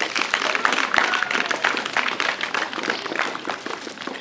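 Audience applauding: many hands clapping together, thinning out near the end.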